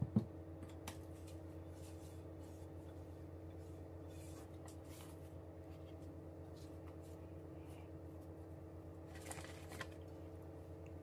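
A steady low hum, with a sharp knock right at the start, a faint click about a second in, and a brief soft scrape about nine seconds in.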